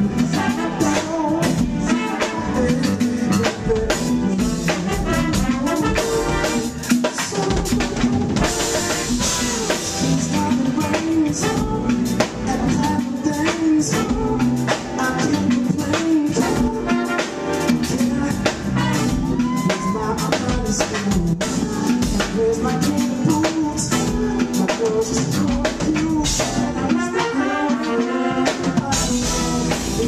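Live neo-soul band playing: a drum kit keeping a steady beat with bass and electric guitar under a male lead vocal. The cymbals swell about eight seconds in and again near the end.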